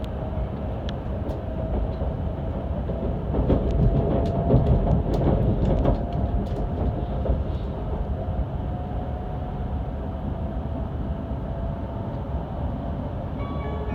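Asama Hokuriku Shinkansen train running, heard from inside the car: a steady low rumble with a faint steady whine, and a run of clicks and knocks from the wheels over track joints or points a few seconds in. Near the end an onboard chime melody begins.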